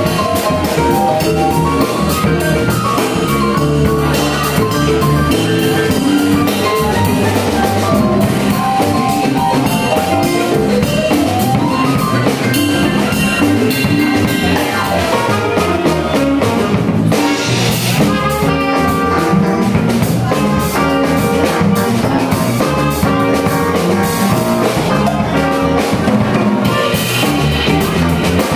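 Live band playing an instrumental funk tune: a drum kit keeps a steady groove under guitar and other instruments.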